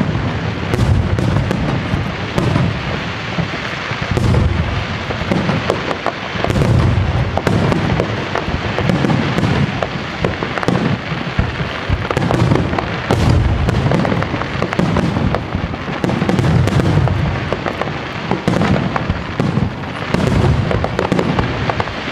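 Aerial firework shells bursting in a rapid barrage: deep booms in quick succession over continuous crackling.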